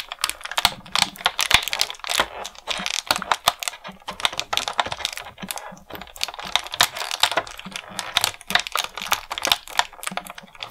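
Clear plastic blister tray crackling and clicking in quick, irregular snaps as fingers pry a small plastic toy backpack out of its moulded slot.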